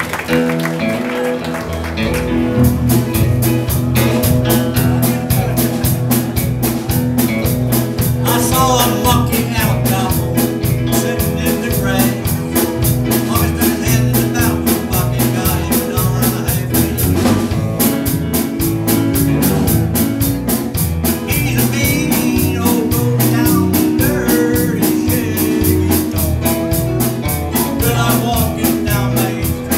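Live rockabilly band playing with a man singing: drums keep a steady beat under keyboard and guitar. The full band with drums comes in about two seconds in.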